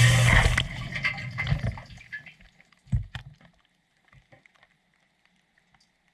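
Water splashing and running inside a dishwasher's tub in a sudden loud burst that fades away over about two seconds, followed by a single knock about three seconds in.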